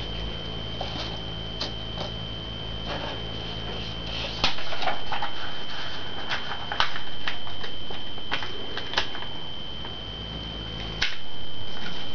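Origami paper being handled and folded by hand on a table: rustling and crinkling with many short clicks and taps. A steady high whine runs underneath, and the background hiss jumps up abruptly three times.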